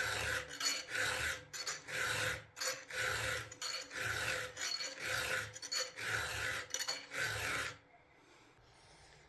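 A file being drawn across a chainsaw chain's cutters in steady, even strokes, a dozen or so in a row, stopping shortly before the end.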